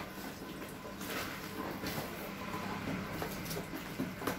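A long cardboard box being opened by hand: scattered scrapes, taps and rustles of the cardboard, with a few sharper clicks about a second in and near the end.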